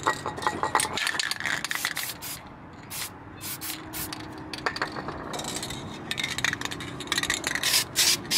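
Aerosol can of flat black spray paint being sprayed in short hissing bursts, repeated several times, onto a brake caliper, with some light clicks in the first second or so. The can is nearly empty.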